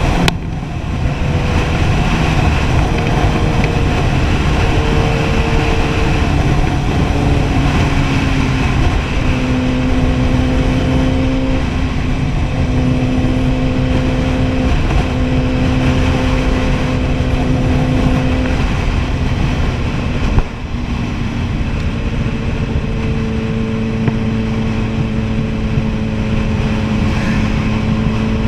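Kawasaki Ninja ZX-10R inline-four engine running at a steady cruise while riding, its pitch holding for a few seconds at a time and then stepping to a new level. Heavy wind rush runs under it, and there is a brief drop in level about twenty seconds in.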